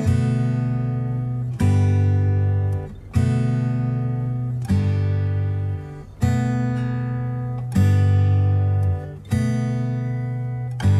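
Background music: acoustic guitar strumming chords, one chord about every second and a half, each left to ring.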